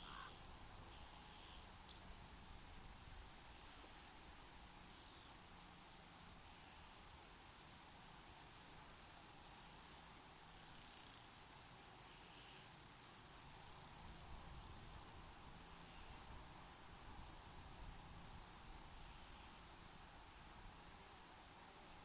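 A cricket chirping steadily, about three short high chirps a second, over a faint steady hiss. About four seconds in, a brief, louder high buzz stands out.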